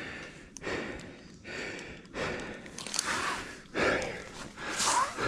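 A climber breathing hard, several loud breaths in and out, winded from the effort of the rope ascent.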